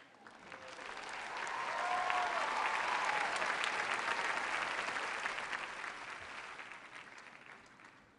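Studio audience applauding, swelling over the first couple of seconds and then dying away near the end.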